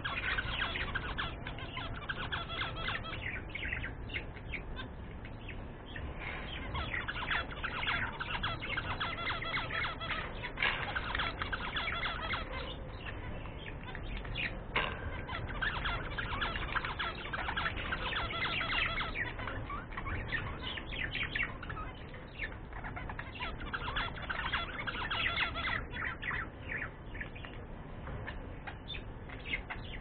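Budgerigars chattering and warbling without a break, a dense run of quick chirps and twitters.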